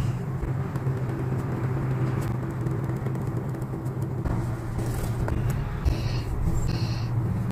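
A steady low hum or rumble, with a few faint light taps and two short hissy rustles near the end.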